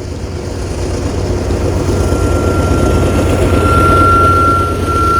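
Union Pacific diesel locomotive working as a lone DPU, passing under power as it helps the train climb the grade; its engine rumble grows louder to a peak about four seconds in and eases slightly near the end. A steady high-pitched squeal joins about two seconds in.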